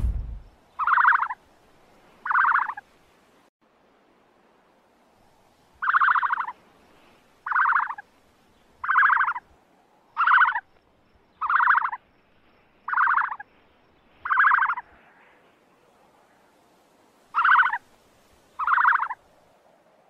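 A repeated animal call: about ten rasping calls, each about half a second long and made of a rapid rattle of pulses, given roughly every one and a half seconds with two longer pauses.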